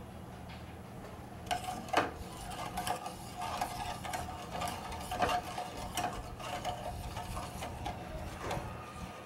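Wire whisk stirring milk in a stainless steel saucepan, its wires scraping and clinking against the pan in quick, irregular strokes that start about a second and a half in, over a steady low hum.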